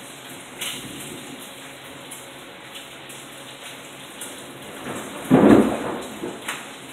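Heavy rain pouring steadily, with a few scattered drip ticks, and a brief loud rumble of thunder a little after five seconds in.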